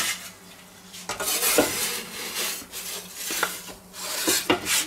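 Metal pizza peel scraping across a pizza stone as it is pushed under a baked pizza, in several rough scrapes with a few sharp clicks and knocks of metal on stone.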